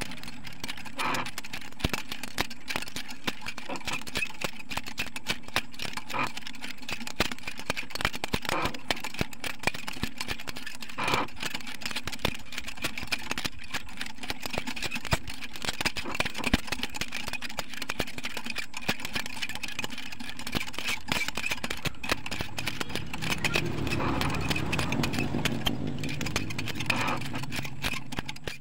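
Motorcycle roller chain running over the sprockets of a homemade screw jack as it is turned, a dense run of small metallic clicks and rattles over a steady hum. A low rumble swells in near the end.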